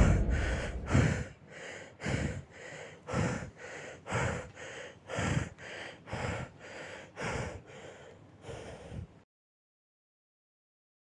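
A young man breathing heavily, panting in and out about once a second, growing quieter and cutting off abruptly about nine seconds in.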